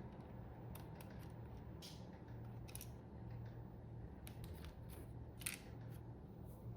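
Small clicks and scrapes of hands handling a mechanical keyboard's parts while working on it, a few sharp ticks spread apart, the loudest a little past halfway, over a low steady hum.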